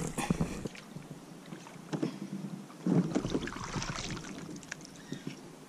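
Water splashing with a few knocks as a hooked largemouth bass is brought alongside a kayak and scooped up in a landing net, water pouring off the net.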